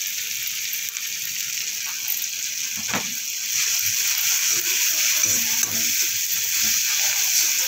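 Vegetables sizzling in hot oil in an iron kadhai while a perforated steel spatula scrapes and knocks against the pan, stirring through chowmein masala. The sizzle grows louder about halfway through, with one sharp clank about three seconds in.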